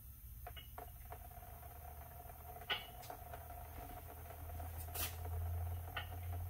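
Broomstick shoving a rag down a car's axle tube: a few scattered knocks and scrapes, the sharpest nearly three seconds in, over a steady low hum that grows a little louder in the second half.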